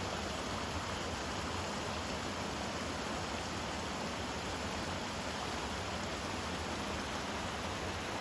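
Steady rushing of a forest creek and waterfall, an even hiss of moving water.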